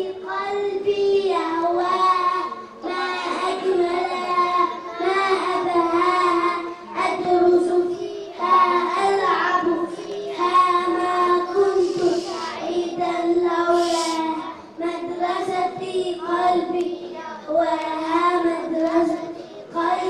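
Young schoolboys singing into a handheld microphone: a high, steady melody in short phrases with brief pauses between them.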